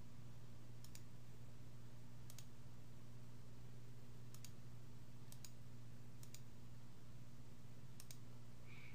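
A few sharp computer mouse clicks, often doubled as the button goes down and up, spaced a second or two apart, over a steady low electrical hum.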